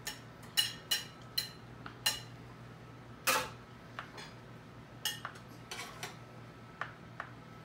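A metal serving utensil clinking against a metal baking pan and a ceramic plate as pieces of baked manicotti are lifted out and plated. It makes a string of short, sharp clinks with a brief ring, the loudest about three seconds in, over a faint low hum.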